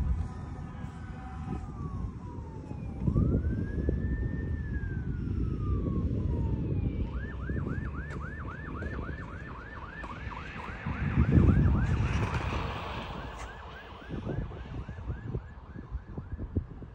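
Emergency vehicle siren sounding, first one slow wail that rises and falls, then switching to a fast yelp of about three cycles a second. A low rumbling noise runs under it, surging about three and eleven seconds in.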